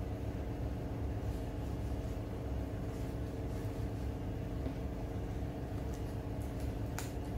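Steady low mechanical hum of a running machine, with a constant tone over a low rumble, and a light click near the end.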